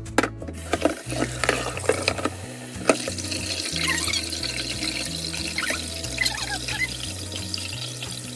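Cold tap water running in a steady stream onto freshly boiled udon noodles in a stainless steel mesh strainer in a steel sink, rinsing the loose flour coating off the noodles. A few sharp knocks come in the first three seconds.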